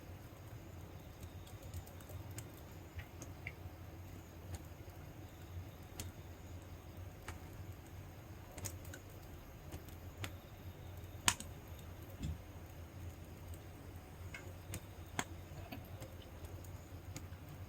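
Wood fire crackling, with irregular sharp pops and snaps, the loudest about eleven seconds in, over a low steady rumble.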